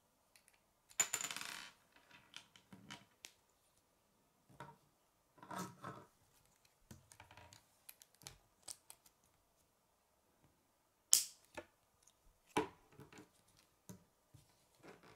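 Plastic K'nex rods and connectors being handled and snapped together: scattered clicks and short rattles, with a longer clatter about a second in and the sharpest snap near eleven seconds.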